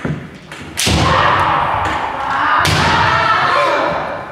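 Kendo sparring: sharp strikes of bamboo shinai and stamping footwork on a wooden floor, three hard impacts at the start, about a second in and near three seconds, with long drawn-out kiai shouts ringing through the hall between them.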